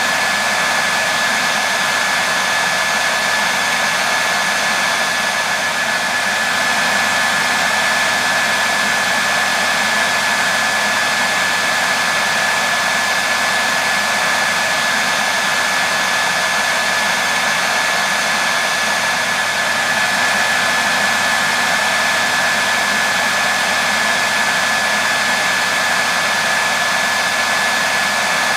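Electric hairdryer running steadily on one setting: a constant rush of air with a steady high whine from the motor and a faint low hum underneath. It is played as white noise to soothe a baby to sleep.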